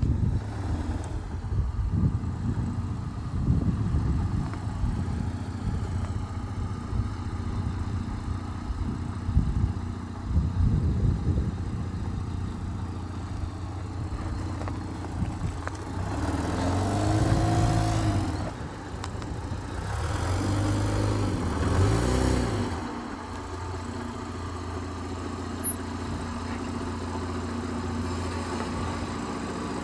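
Toyota Land Cruiser FZJ80's straight-six engine running at low speed as the truck crawls over a rutted dirt track, rising and falling in pitch with a couple of revs past the middle.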